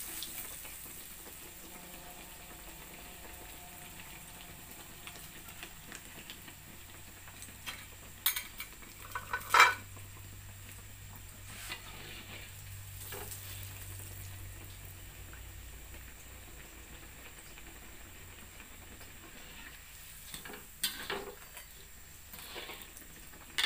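Oil sizzling steadily as a breadcrumb-coated ice-cream ball deep-fries in an aluminium wok, with a spatula knocking against the wok a few times, loudest about ten seconds in.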